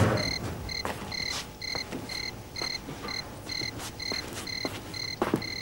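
Cricket chirping steadily, a short chirp about four times a second.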